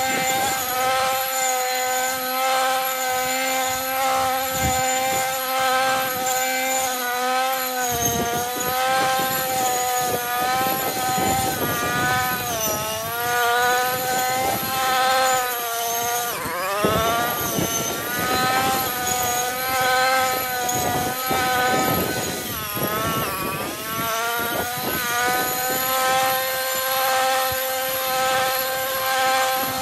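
Husqvarna 128R two-stroke petrol brushcutter running at high revs, its engine pitch sagging three times under load, deepest near the middle, as it cuts through dense horseradish and grass. From about eight seconds in, a rough crackle of stems being cut runs under the engine.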